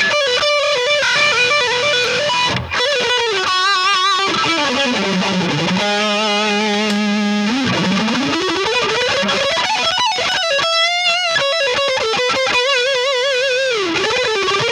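Jackson 7-string electric guitar with high-output Seymour Duncan Blackout pickups, played through an amp. Sustained single notes are worked with the tremolo bar: wide wobbling vibrato, a slow dive down in pitch about four seconds in, a held chord, then a swoop back up about eight seconds in.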